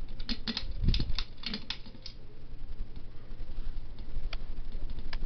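Harbor Breeze Armitage ceiling fan switched to high speed: a run of sharp clicks and rattles in the first two seconds, then a steady motor hum that grows louder as the blades speed up, with a couple more clicks near the end. The rattling comes from a loose light kit that needs tightening.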